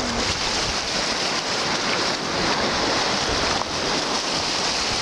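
Small lake waves washing over a gravel shore, with wind on the microphone: a steady rush of noise.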